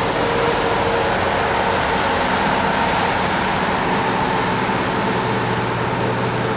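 Heavy harvesting machinery running steadily under load: diesel engines of combine harvesters and tractors, with a dense wash of machine noise over a low engine hum.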